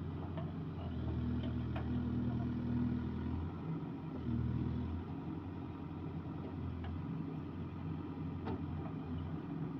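A vehicle engine running steadily: a low hum with a few faint clicks.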